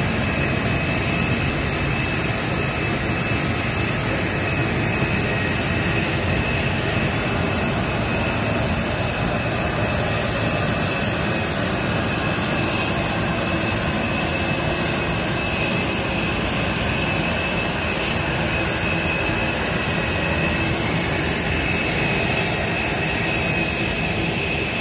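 Parked airliner's auxiliary power unit running: a steady, unchanging jet-turbine whine, with several high whistling tones over a constant rumble.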